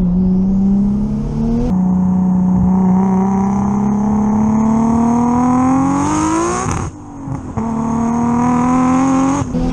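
Nissan Skyline R33 GTS-T's tuned turbocharged engine under hard acceleration, its note climbing steadily. The revs drop back briefly about seven seconds in and then climb again, as at a gear change.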